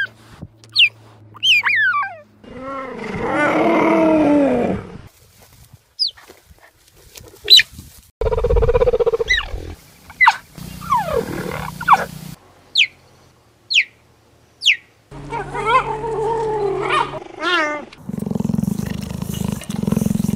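Cheetah calls: many short, high-pitched chirps, some in quick runs, mixed with several longer, lower calls lasting one to two seconds whose pitch rises and falls.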